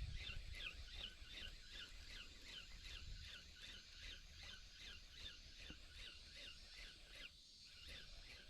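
Bird calling faintly: a long run of quick down-slurred chirps, about three a second, with a short break near the end, over a low rumble of wind on the microphone.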